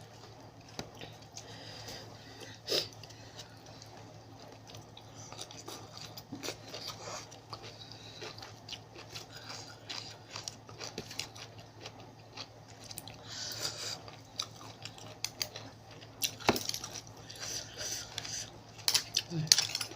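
A person chewing spicy seafood papaya salad with crab, cockles and squid, with scattered clicks of eating against a dish. The clicks come thicker and sharper near the end.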